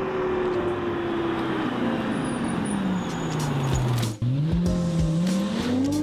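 Proton Gen-2 car engine whose revs fall steadily for about four seconds as the car slows. After a brief break about four seconds in, the engine note rises again as the car accelerates.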